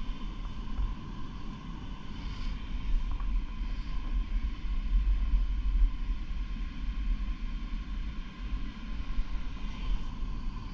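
A machine running steadily: a strong low rumble under a faint, steady whine, with no starts or stops.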